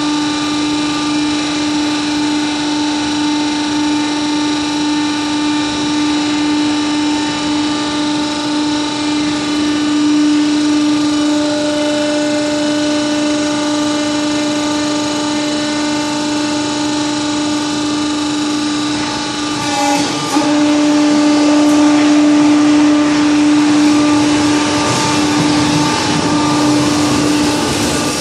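Hydraulic power unit of a brick kiln-car pusher and ferry cart running with a steady hum. About twenty seconds in there is a knock, and after it the machinery runs louder and rougher.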